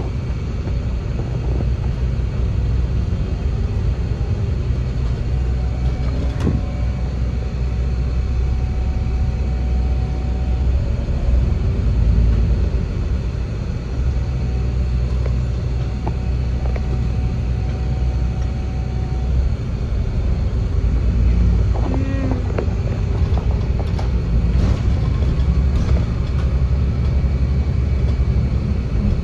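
City bus driving, heard from inside the cabin: steady engine and road rumble, with a faint whine that comes and goes and a few brief clicks and rattles.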